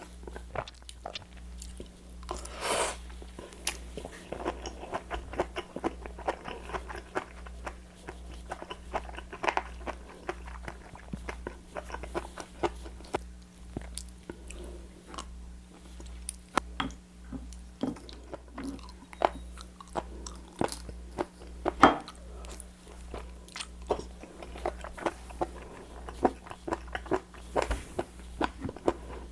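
Close-miked chewing, biting and crunching of raw seafood, with many short wet smacks and crunchy clicks at an irregular pace, over a faint steady hum.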